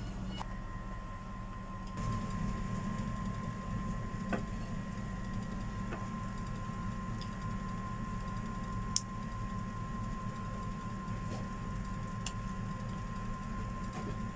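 Steady mechanical hum of a small electric motor running, with a thin steady whine and a few faint clicks.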